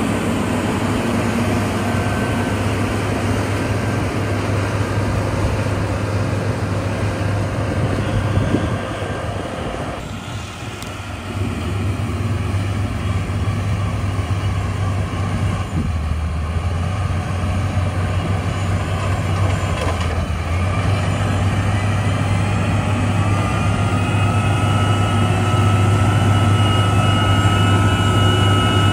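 Heavy diesel engine of road-building machinery running steadily under load. It dips briefly about ten seconds in, then grows louder with a faint rising whine toward the end.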